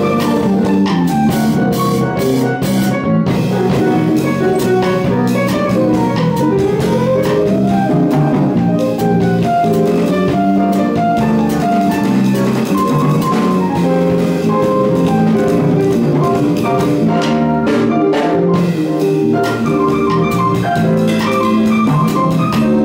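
Live band playing a song: drum kit, bass guitar and guitar under a melody line that bends up and down.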